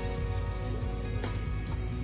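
Background music: held instrumental notes over a strong bass line, with new notes struck about every half second.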